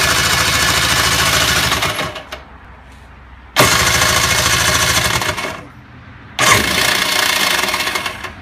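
Kawasaki 750 SX jet ski's two-stroke twin engine turned over on its electric starter three times, about two seconds each with short pauses between. It does not keep running: the starting problem the owner is chasing.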